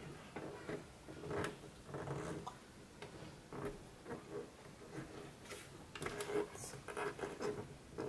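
Faint scattered clicks and rubbing as hands press and handle the plastic case of a toy ATM coin bank.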